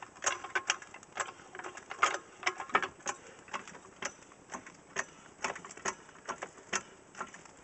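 Car jack being worked under a car: a run of uneven clicks and small knocks, a few a second.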